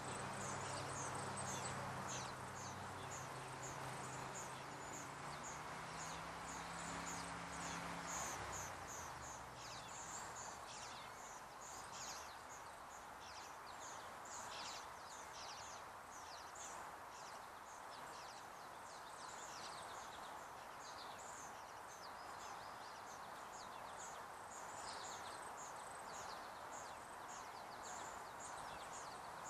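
Outdoor ambience: a steady hiss with many short, high chirps repeating several times a second throughout. A low hum underneath fades out about eight seconds in.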